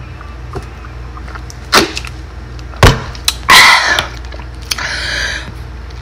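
Close-up eating and handling noises from Doritos tortilla chips: a couple of sharp clicks, a heavy thump near the middle, then two bursts of crunching.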